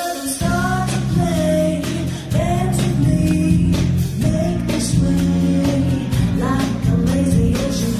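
Salsa song playing for the dance: a singing voice over bass, guitar and a steady beat.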